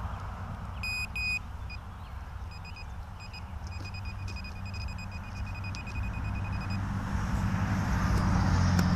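A metal detector beeping at one high pitch: two short beeps about a second in, then a stuttering run of quick beeps lasting about four seconds. A steady low rumble runs underneath.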